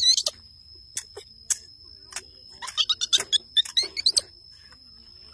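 Baby monkey crying with shrill squeaks: a squeal right at the start, then a quick run of short squeaks about three to four seconds in.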